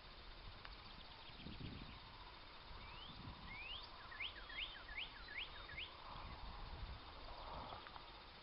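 A songbird sings one short phrase: two rising slurred notes, then a quick run of about five downward-sweeping notes, faint against the outdoor background.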